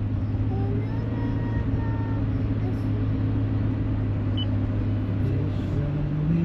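Steady low rumble and hum of a car on the move, heard from inside the cabin.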